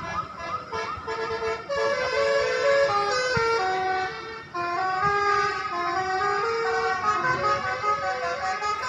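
A tune played on a multi-note musical vehicle horn: short repeated rising chirps, then held notes stepping up and down, with several sounding together.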